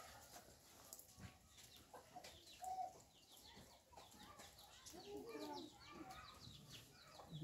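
Faint clucking of chickens, a few short calls bunched together about two-thirds of the way through, over near-silent background.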